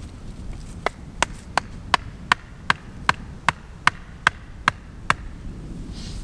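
Axe blows on the top of a wooden stake, driving it into the ground: twelve sharp knocks in a steady rhythm, about two and a half a second, over low wind rumble.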